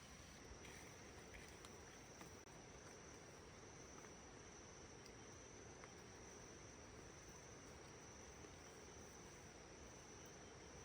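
Faint, steady, high-pitched insect chirring, like crickets, over low background hiss.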